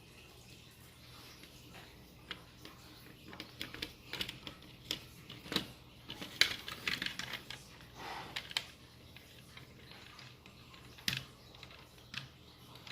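Irregular small clicks and taps of hard plastic parts and screws being handled while reassembling a vintage Kenner X-Wing toy, busiest in the middle with one sharp click near the end.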